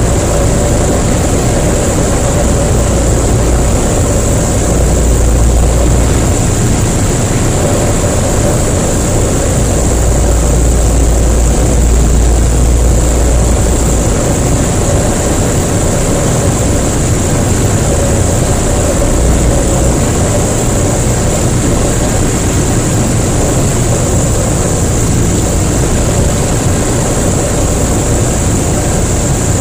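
Jabiru LSA-55 light aircraft engine and propeller running steadily, heard from inside the cockpit on approach. A low rumble swells and fades in gusts, from the severe buffeting of turbulence and crosswind.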